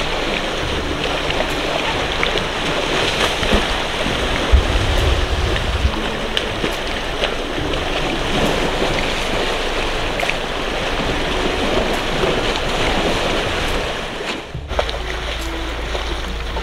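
Muddy water sloshing and splashing as elephants wallow in a mud pool, a continuous wet wash with small crackles, with wind on the microphone. About three-quarters of the way through there is a sudden change, after which a steadier low wind rumble joins the sloshing.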